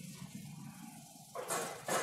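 A wooden pottery turntable scraping as it is turned by hand, in two short rasps near the end, over a steady low hum.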